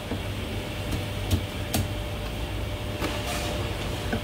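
A Chinese cleaver knocks a few times, spaced irregularly, on a thick wooden chopping block while cutting braised goose, over a steady low rumble.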